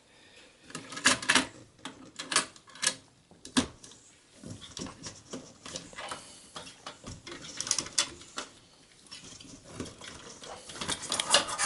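Irregular small clicks, taps and light rattles of computer parts being handled inside an opened small-form-factor desktop case, with a brief lull in the middle and busier clicking near the end.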